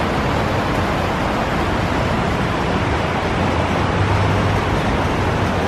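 Steady rush of falling water from a large waterfall, an even, unbroken noise.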